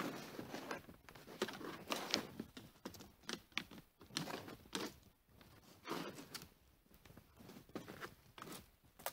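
Footsteps crunching in snow, an irregular run of soft steps about every half second.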